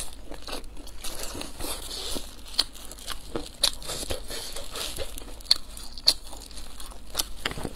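Clear plastic gloves crinkling as hands pull apart a pan-fried stuffed flatbread, with scattered sharp crackles from the crisp crust tearing, plus chewing.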